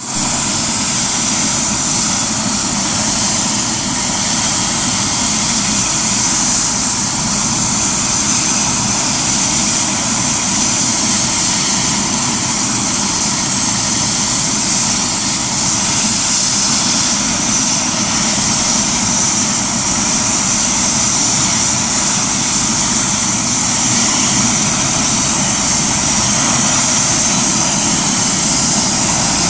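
Turbine helicopter running on the ground with its rotor turning: a loud, steady high whine over rushing rotor noise.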